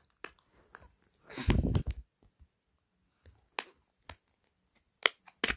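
A Samsung Galaxy S4 phone being handled: a dull thump about a second and a half in, then a few sharp, separate clicks.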